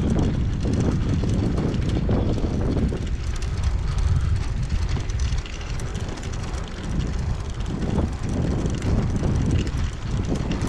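Wind buffeting the microphone of a camera on a moving bicycle: a low, gusting rumble with road and tyre noise under it.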